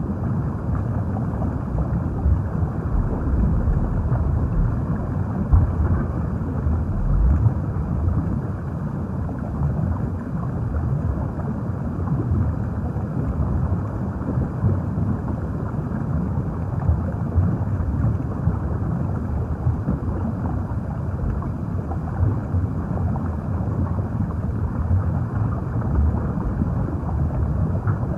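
Underwater ambience: a steady, muffled low rumble and churn of water, with small uneven swells and nothing above the low and middle range.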